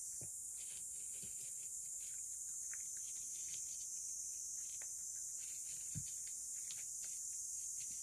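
A cat eating from a shallow dish: small wet chewing and licking clicks, with a few soft knocks of the dish, about a quarter second, a second and a quarter, and six seconds in, over a steady high hiss.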